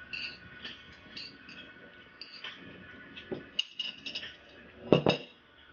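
Chopsticks clicking and clinking against ceramic plates and bowls during a meal, with a louder clatter of dishes about five seconds in.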